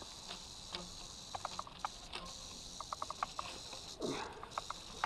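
Metal snake tongs clicking and tapping as they handle a timber rattlesnake against a clear plastic tube, in two quick clusters of light clicks.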